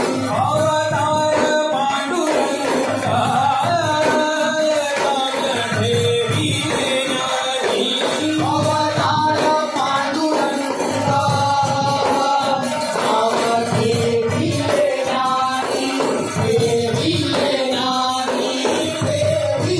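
Live Konkan devotional bhajan: a male lead voice and group singing an aarti melody to harmonium, with barrel drums (pakhawaj/mridang) keeping a steady beat under jingling hand percussion. The music runs on without a break.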